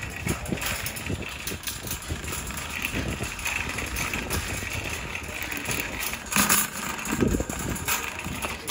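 Shopping cart pushed fast across a hard store floor: the wheels rumble and the wire basket rattles, with a louder clatter about six and a half seconds in.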